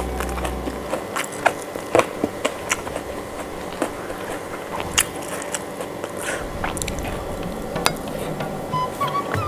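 Close-miked mouth sounds of eating by hand: irregular wet smacks and clicks of chewing rice and chicken, with faint sounds of fingers working food on a plate.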